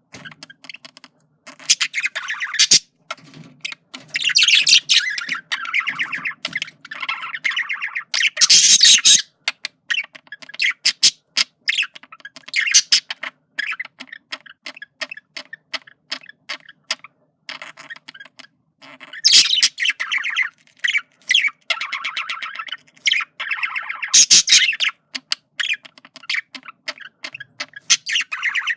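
Male budgerigar's courtship warble: fast chattering made of rapid clicks and ticks, breaking into louder squawky warbling passages several times.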